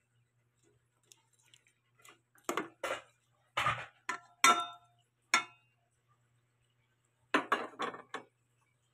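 A metal spoon clinking and scraping against a metal pan as it stirs cooked shrimp, in quick runs of knocks with a brief metallic ring in the middle, and another short run of clatter near the end.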